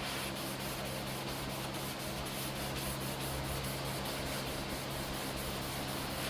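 Wet sandpaper rubbing back and forth on a plastic headlight lens by hand, in quick, even strokes, over a steady low hum.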